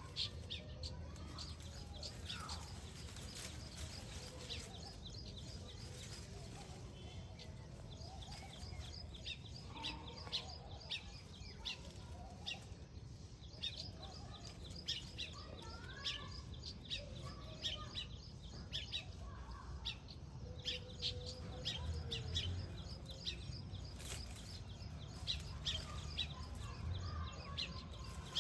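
A colony of weaver birds chattering, with a steady stream of short, rapid high chirps and some lower warbling calls over a low steady rumble.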